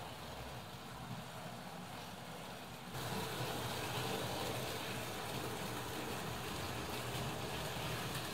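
Hornby Dublo model steam locomotive and goods wagons running on metal track: a steady whir and rumble of motor and wheels. It gets louder about three seconds in, as the goods train passes close by.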